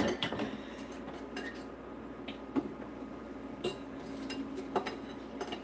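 Scattered metal clinks and clatters, about one a second, as a wire cooling rack is lifted and moved and a metal slotted spatula knocks against a steel saucepan, over a low steady hum.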